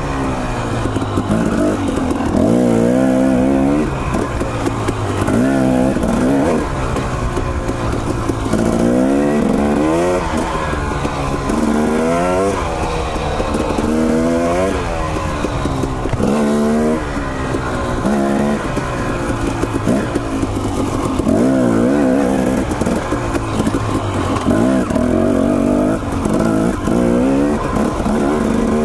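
Dirt bike engine being ridden on single track, its pitch climbing and dropping over and over as the throttle is opened and rolled off every second or two. A steady rushing noise runs underneath.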